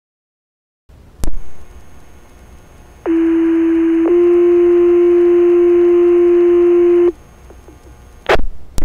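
Two-tone sequential pager alert over fire dispatch radio: a steady low tone for about a second, then a slightly higher tone held for about three seconds. These are the tones that set off the volunteer firefighters' pagers ahead of a voice page. A sharp radio click comes before the tones, and two more come near the end.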